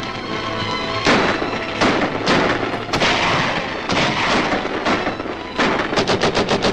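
Film battle gunfire: scattered rifle shots and blasts, each with a long echoing tail, then a rapid run of shots near the end.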